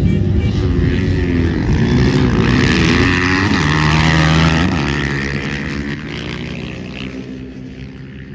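Dirt bike engine revving as the bike rides past on the ice. The pitch wavers up and down, then drops as the bike goes by about four to five seconds in, and the sound fades away after that.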